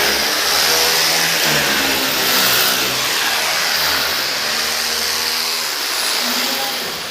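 A motor running with its pitch rising and falling, under a loud steady hiss; it fades near the end.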